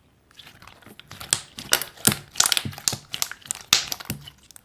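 Irregular crinkling and clicking, several sharp crackles a second, close to the microphone.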